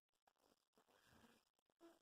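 Near silence: faint room noise, with no ringtone playing.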